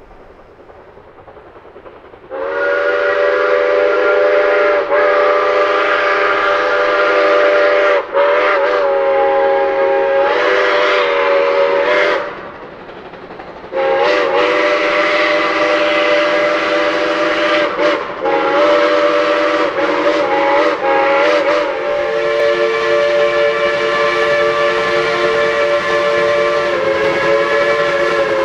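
Shay geared steam locomotive's chime whistle blowing long several-note chords, starting about two seconds in, with a short break around the middle. The chord wavers in pitch at times as the whistle is worked.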